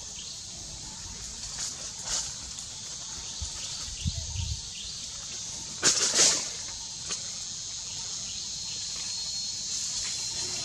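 Outdoor tree-canopy ambience: a steady high insect drone with a few short faint chirps, and one loud, brief noise about six seconds in.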